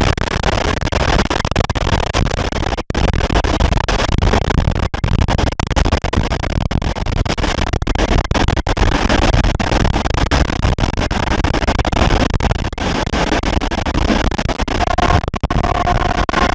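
Continuous loud rumble and clatter of a moving train hauled by an SU45 diesel locomotive. About fifteen seconds in, a steady two-note tone sounds for a couple of seconds.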